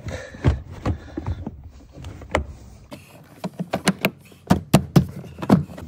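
Rear seat side bolster of a Toyota Camry being pressed back into place against the plastic trim. It gives a run of sharp clicks and knocks, scattered at first and coming thick and fast in the last two seconds as it goes in.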